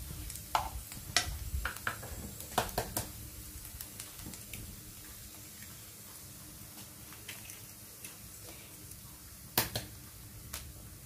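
A wooden spatula taps and scrapes in a nonstick frying pan of diced chicken sausage, over a faint sizzle. A few sharp knocks come in the first three seconds, and one loud knock near the end, as eggs are cracked into the pan.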